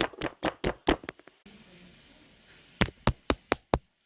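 Quick light tapping, about four to five taps a second, that stops for about a second and a half in the middle and then starts again.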